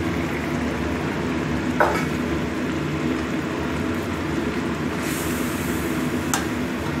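Metal spatula stirring fish heads braising in soy-sauce liquid in a wok, over a steady sizzle and a low hum, with a short scrape against the pan about two seconds in.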